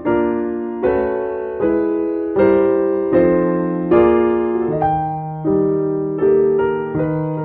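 Background piano music: slow chords struck about once every second and left to fade.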